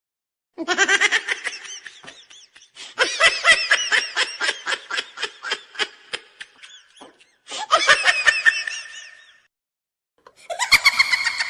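High-pitched, giggling laughter like a baby's, in four separate bursts of quick pulses, each starting abruptly with dead silence between some of them.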